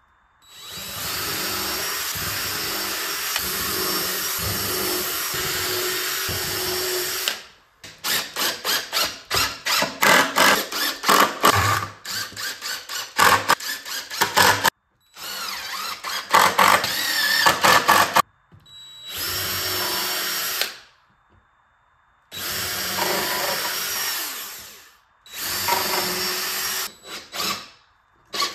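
Cordless drill driving screws into a pine bench frame: several long steady runs of the motor, and between them stretches of rapid stuttering pulses.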